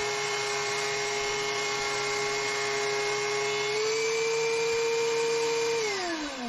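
DeWalt benchtop thickness planer running with a steady high motor whine, its knives just flipped to a fresh cutting edge. The pitch rises slightly about four seconds in, then the motor is switched off and winds down near the end.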